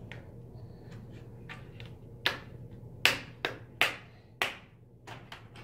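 The plastic screen bezel of an Acer Aspire ES 15 laptop is being pried off by hand, its hidden retaining clips snapping loose one after another. It comes as a series of about ten sharp plastic clicks, the loudest a little after three seconds in.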